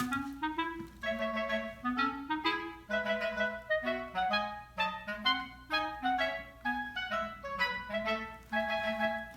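Background music: a light, bouncy tune with a clarinet-like woodwind lead over a bass line, in short notes with a steady beat.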